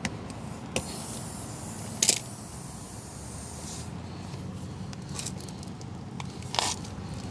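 Light clicks and knocks of hand tools being handled at a car tire, the sharpest about two seconds in and another near the end, with a spell of hiss from about one to four seconds in.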